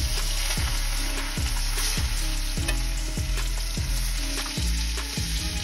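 A New York strip steak frying in butter and olive oil in a cast iron pan, sizzling steadily as the butter starts to melt around it.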